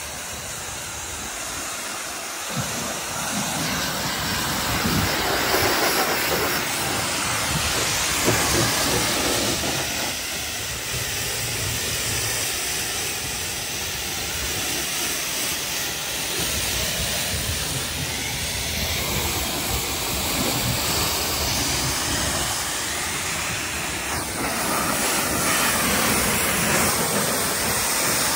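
Pressure-washer jet spraying water against a tractor's tyres and bodywork, blasting off caked dust and mud: a loud, steady hiss that swells and eases a little as the jet moves.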